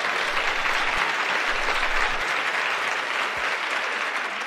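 Audience applauding, many hands clapping steadily and beginning to die away near the end.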